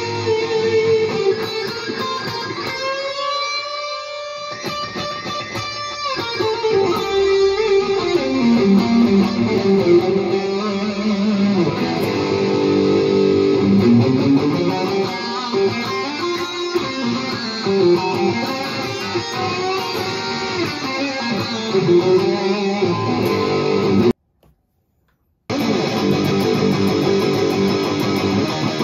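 Electric guitar played through a Valeton GP-200JR multi-effects processor on its "Lead tone" patch: a melodic lead line of held notes, with a rising string bend about three seconds in. Near the end the sound cuts out completely for just over a second, then comes back on the processor's "METAL" patch.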